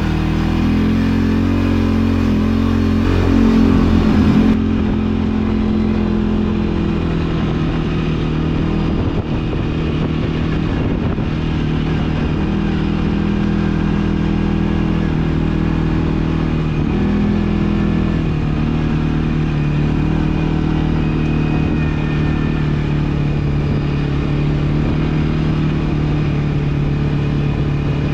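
ATV engine running under way, rising in pitch and getting louder over the first few seconds, then running steadily at an even pitch.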